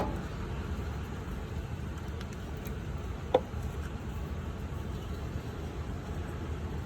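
A single sharp plastic click about three and a half seconds in, from handling the pulled fuse and fuse-box parts, over a steady low background rumble.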